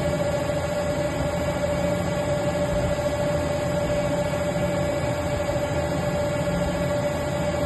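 Mazak Integrex CNC mill-turn lathe running under power, a steady whine over a constant low hum.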